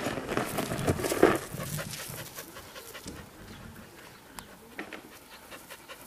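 Dog panting hard after chasing a ball. For about the first second there is loud scuffling as it works the ball on gravel.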